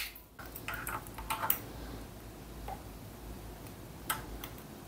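Light metallic clicks and taps from hand tools and throttle parts being handled: several in the first second and a half, then one sharper click about four seconds in.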